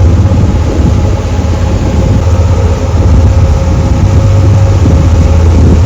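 A passenger tour boat's engine running steadily under way, a loud, low drone with a steady hum above it.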